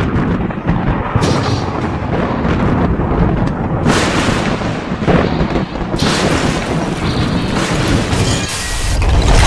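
Loud, continuous explosion-like effects for lightning strikes. New layers cut in sharply about one, four and six seconds in, and again near the end.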